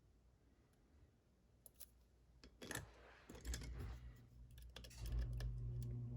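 Scattered small clicks and rattles from handling a lock and its parts, the loudest about two and a half seconds in. A steady low hum comes up about three and a half seconds in and keeps going.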